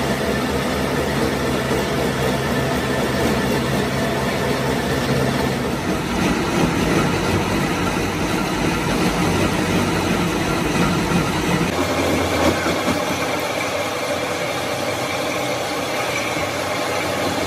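Metal lathe running and cutting steel on a hydraulic cylinder part: a steady machine hum with cutting noise. The sound shifts suddenly about six and about twelve seconds in.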